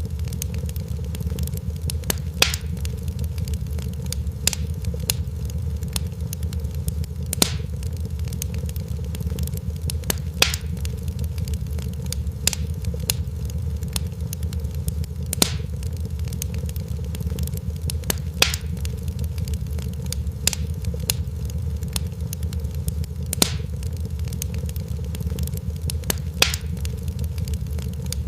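Wood fire crackling in a fireplace: sharp, scattered pops and snaps every second or two over a steady low rumble.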